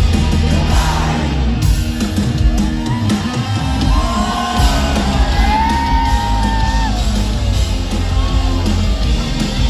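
Live pop-punk rock band playing loud, with heavy bass and drums, picked up by a phone in the crowd; voices yell and sing over the band for a few seconds midway.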